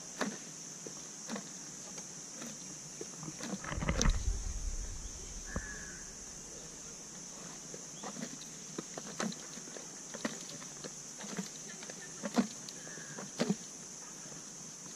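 Riding on an elephant's back as it walks: scattered soft knocks and creaks from the howdah and the plodding ride, over a steady high hiss. A low rumble swells about four seconds in.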